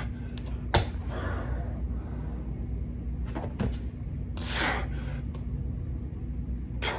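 A man exercising with push-ups: short breathy exhales as he pushes up, a sharp click about a second in and a few fainter clicks, over a steady low hum.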